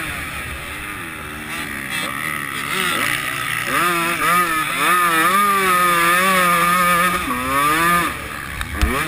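125 cc two-stroke motocross bike's engine under hard riding, its revs rising and falling with the throttle and gear changes. The pitch is held high and wavering through the middle, then drops off near the end.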